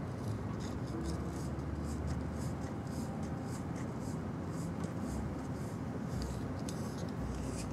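Grooming brush stroking through a cat's fur, a scratchy swish repeated in quick strokes, about three a second.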